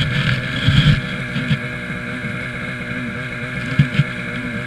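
Snowmobile engine running at a steady idle, with irregular low rumbles and a few knocks from wind and handling on the helmet camera's microphone.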